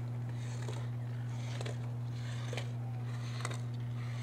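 Slalom skis scraping and carving on hard-packed snow, a short crisp hiss at each turn about once a second, over a loud steady low hum.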